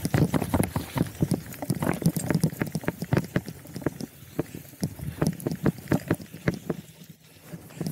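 Bicycle rattling and bumping over a rough dirt trail: rapid, irregular knocks and clatter that thin out and get quieter over the last few seconds.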